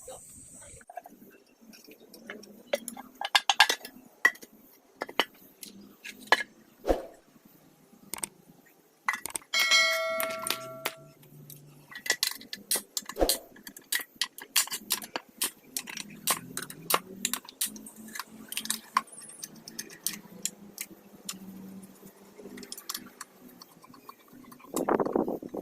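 Metal hand tools and engine parts clinking and knocking during engine disassembly, with one metal piece ringing briefly about ten seconds in.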